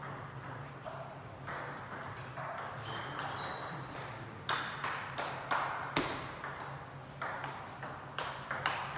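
Table tennis ball clicking sharply off rackets and the table, about twice a second, in a rally that starts around halfway through. A few lighter taps come before it, as the server gets ready.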